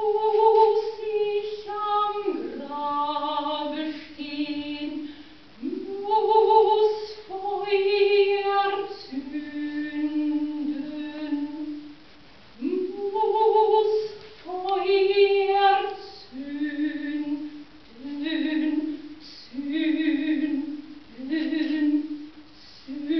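A woman singing unaccompanied: long held notes, each phrase sliding up into its first note, with the phrases growing shorter and coming about once a second near the end.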